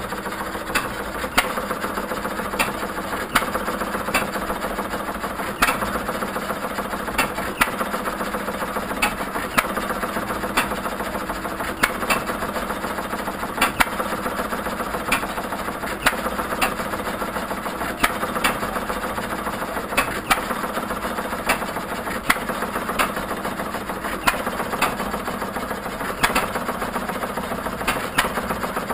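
1937 John Deere hit-and-miss engines running while turning gear-driven ice cream freezers. A sharp firing bang comes every second or two, somewhat irregularly, over a steady mechanical clatter from the engines coasting and the freezers churning.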